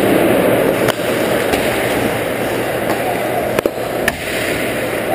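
Ice hockey play on the rink: skate blades scraping and carving the ice over a steady rink noise, with a few sharp stick-and-puck clacks about a second in and twice near the end.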